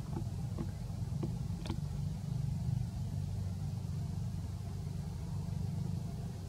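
Steady low rumble of a running engine, with a few short faint clicks in the first two seconds.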